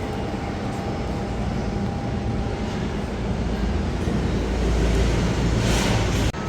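Steady low rumble of passing vehicle noise that swells near the end, with a brief rushing hiss, then cuts off abruptly.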